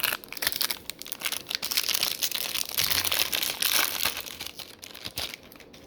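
A trading-card pack's foil wrapper being torn open and crinkled by hand, a dense crackling that goes on for about five seconds and stops near the end.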